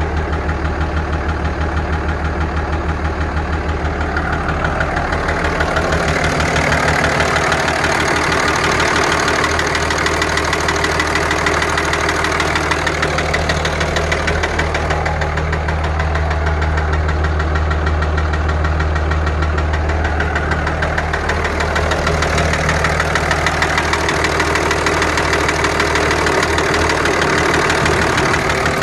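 The 5.9 Cummins inline-six turbodiesel in a 2003 Dodge Ram 2500, idling steadily with a rapid, regular knock. The owner calls it ticking or piston slap, and suspects the number one injector may still be leaking.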